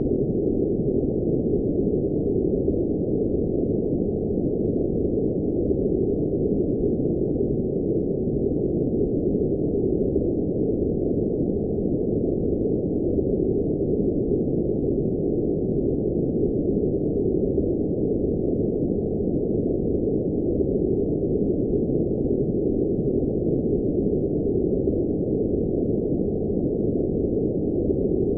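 Steady, unchanging electronically generated noise sold as blue noise: an even, muffled rush with no hiss at the top, its high end cut off sharply.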